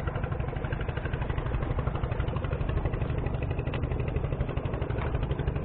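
An engine running steadily with an even, rapid throb.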